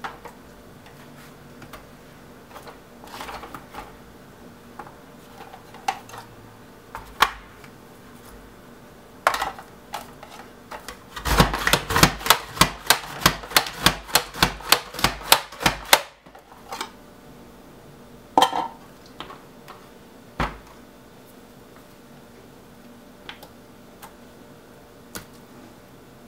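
Pampered Chef plunger slicer pumped rapidly, slicing lemons. Midway there is a fast run of about twenty sharp clacks, roughly four a second, lasting some five seconds. Scattered single knocks and taps before and after come from handling the slicer and the lemon pieces on the cutting board.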